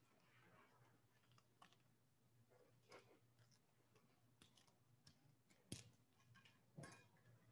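Near silence: faint room tone with scattered small clicks and knocks, the two loudest a little past halfway and again about a second later.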